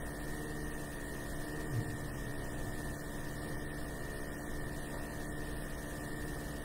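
Steady electrical hum, several constant pitches held without change, over faint room noise.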